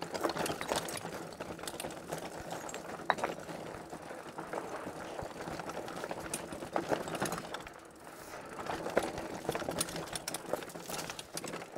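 Hiboy P6 fat-tire e-mountain bike rolling over a rocky trail: its 4-inch tires crunching on loose stones, with many sharp clicks and rattles from the bike as it jolts over the rocks.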